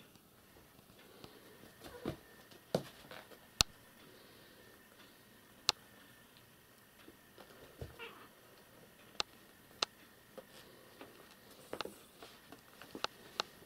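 A cat and two kittens playing on a floor mat: scattered sharp taps and knocks as they pounce and tumble, with a few faint mews.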